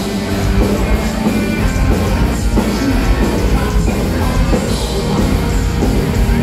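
A folk-metal band playing live at full volume over a club PA, with electric guitars and drums.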